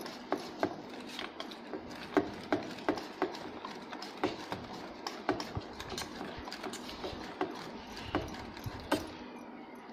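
Wire whisk beating thick semolina batter in a stainless steel bowl: a soft wet stirring with the whisk's wires clicking against the steel, about twice a second at an uneven pace.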